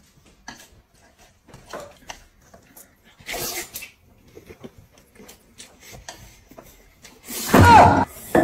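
A man slurping and chewing plain boiled noodles: short slurps and mouth clicks, with a longer slurp about three and a half seconds in. Near the end a person's voice cuts in briefly and loudly.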